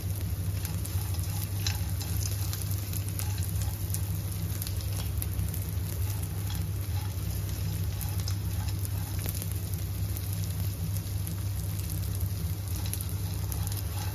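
Pieces of edible gum (dink) frying in hot ghee in a nonstick kadhai, crackling and popping steadily as they puff up, while a wooden spatula stirs and scrapes them around the pan. A steady low hum runs underneath.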